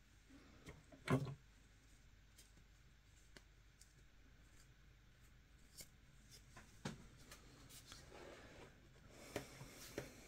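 Mostly quiet room with small handling noises from a hand at the work table: one sharp knock about a second in, a few faint clicks, and light rustling near the end.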